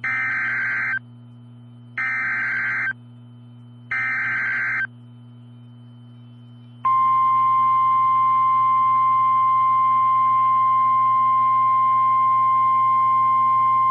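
Emergency Alert System tones: three short bursts of warbling data tones (the SAME header), each about a second long and two seconds apart, then the steady two-tone attention signal starts about seven seconds in and holds. It signals an incoming severe thunderstorm warning.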